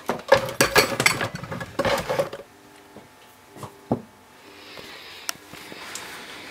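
Glass beaker being handled, with the sticks in it clattering and knocking against the glass in a rapid run of knocks, then two single clinks. A faint steady hiss follows near the end.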